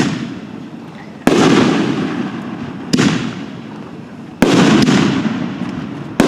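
Aerial firework canister shells (60-gram multicolor Apocalypse shells) going off one after another: five sharp bangs about a second and a half apart, each trailing off in a long rolling echo.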